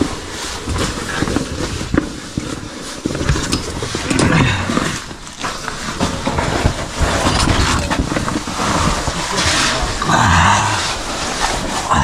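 A caver crawling through a tight rock squeeze: clothing, boots and gear scuffing and knocking against stone. Two louder strained breaths or grunts of effort come about four seconds in and again near ten seconds.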